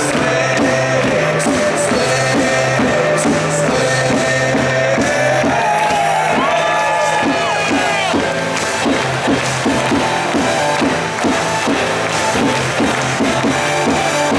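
Music with a steady beat played over an arena's sound system, with crowd noise underneath.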